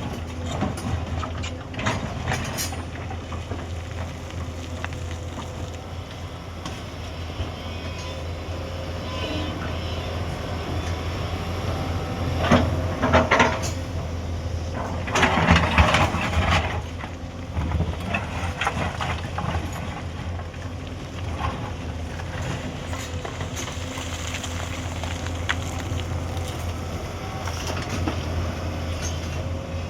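Hyundai 210 excavator's diesel engine running steadily under work, with two louder bursts of noise about halfway through and scattered clatter.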